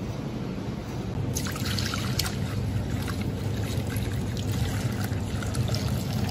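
Liquor poured from a ceramic jug into a ceramic bowl, splashing and foaming as it fills, the pour starting about a second in.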